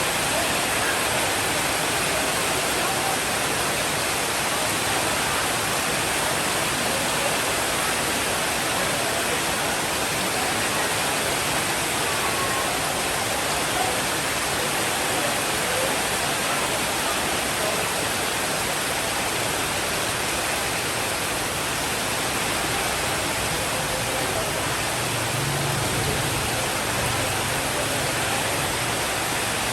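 Steady, even rainfall hiss. A soft low rumble of distant thunder comes in near the end.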